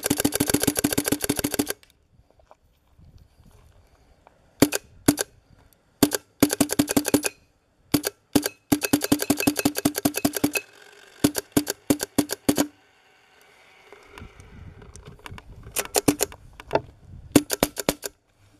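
Bob Long Autococker paintball marker being test-fired after a rebuild and tuning: rapid strings of sharp pops, broken by pauses and a few single and double shots.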